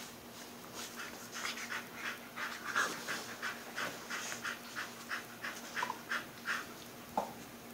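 Dog panting rapidly, about three or four breaths a second, with a brief squeak near the end.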